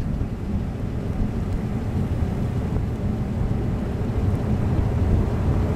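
Steady low roar of a large EF5 wedge tornado.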